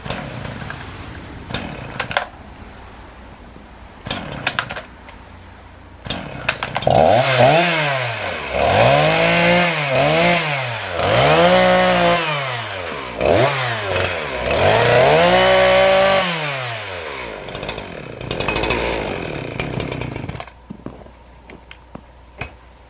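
Gasoline chainsaw cutting up fallen red pine branches, its engine pitch rising and falling about six times as it revs into the cuts and bogs under load. The sound falls away about twenty seconds in.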